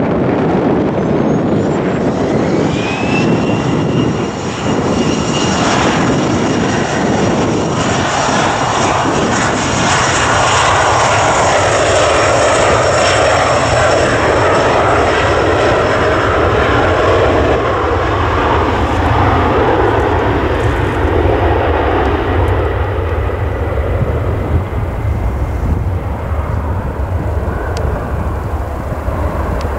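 Embraer ERJ-135's twin Rolls-Royce AE 3007 turbofan engines spooling up to takeoff power, with a whine that rises about two seconds in and then holds steady over a loud rushing jet noise, through the takeoff roll and liftoff.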